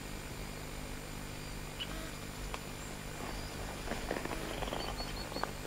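Quiet outdoor background with a steady low hum, no firework going off. Light crackling and rustling comes about four seconds in, with a few short, high chirps near the end.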